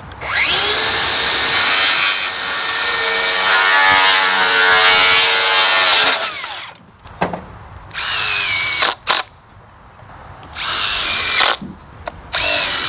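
DeWalt cordless circular saw spinning up, cutting through a pressure-treated board for about six seconds, then winding down. A cordless drill then drives screws in three short bursts.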